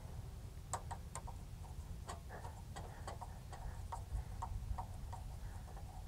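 Irregular light metallic clicks and ticks of a screwdriver working the Torx screw that clamps the choke cable on a small-engine carburetor, with the parts being handled, over a steady low rumble.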